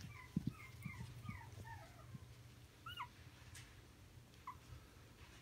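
Chihuahua puppies whimpering faintly: a quick string of short, high, falling squeaks in the first two seconds, then a couple more.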